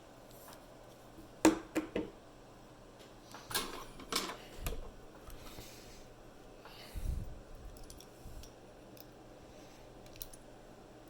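Small metal clicks and taps from handling a lock and small tools, loudest about a second and a half in, with a further cluster near four seconds and a single dull knock around seven seconds.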